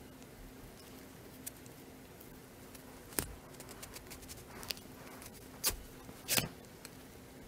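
Handling noise from a small coated-canvas wallet turned and squeezed in the hands: faint rubbing, and four short sharp clicks or taps, the loudest about six and a half seconds in.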